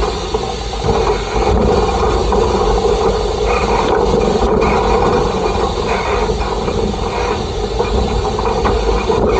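Peckett industrial steam locomotive under way, heard from close up on its coal bunker: a steady running noise of the engine and wheels on the rails.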